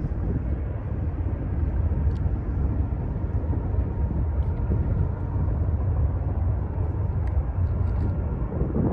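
Steady low rumble of a distant freight train, mixed with wind noise on the microphone.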